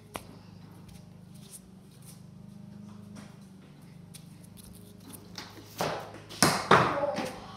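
Loud, echoing knocks and scuffs of a cricket ball being bowled and played in a bare concrete garage, bunched together near the end, over a steady low hum.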